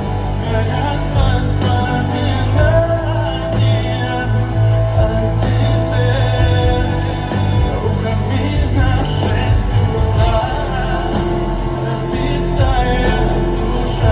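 Live pop music through a concert hall's sound system: an instrumental passage with a steady deep bass and beat under a melody line, with some singing but no clear words.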